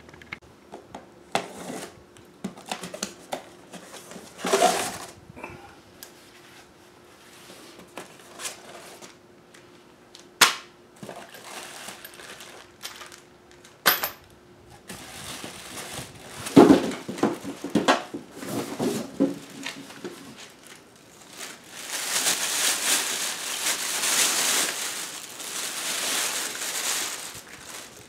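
Unpacking noises: cardboard box flaps and packing being handled, with scattered knocks and clicks. Near the end a long stretch of plastic bag crinkling as the wrapped generator is pulled from the box.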